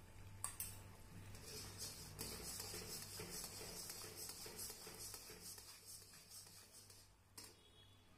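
A steel spatula stirs and scrapes thick, grainy reduced milk in an iron kadhai, making a faint scraping hiss. A couple of light metal clicks of utensil on pan come about half a second in and again near the end.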